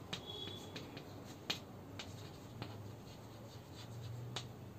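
Chalk writing on a blackboard: the light scrape of chalk strokes, broken by a few sharp taps as the chalk strikes the board, the loudest about a second and a half in.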